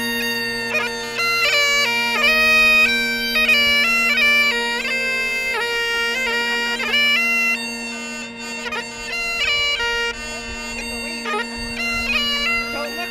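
Bagpipes playing a tune: the chanter's melody steps quickly from note to note over steady, unbroken drones.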